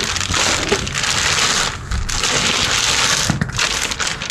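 Stiff brown wrapping paper crinkling and rustling as a new motorcycle roller chain is handled on it and dragged off it, with the chain's links clinking. The rustling comes in two long stretches with a short pause between them.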